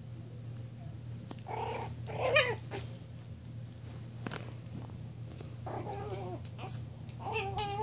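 A small puppy growling and giving a few short, wavering whines and yips while play-fighting with a child who holds it.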